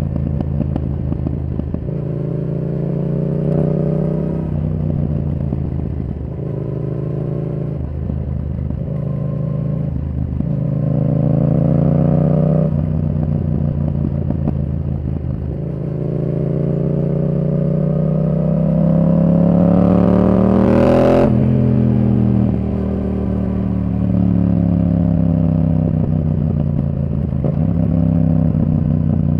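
Yamaha R7's parallel-twin engine through a Yoshimura R77 exhaust, revving up and dropping back again and again through the gears. The longest pull climbs for several seconds to a peak about three-quarters of the way through, then drops sharply.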